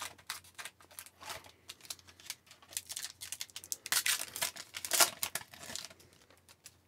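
Foil wrapper of a hockey-card pack crinkling and tearing as it is opened, with cards being handled: a run of crackles and rustles, loudest about four and five seconds in.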